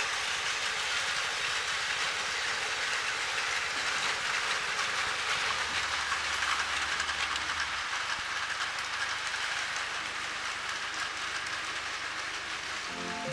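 Plarail battery-powered toy train running steadily along its plastic track, a continuous whir and rattle of its small motor and wheels.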